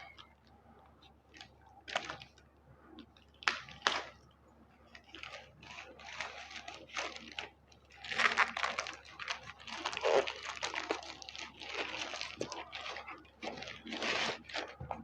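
Crinkly packaging around a sketchbook being torn and crumpled open by hand: scattered crackles and rips, sparse at first, then busy and continuous from about eight seconds in.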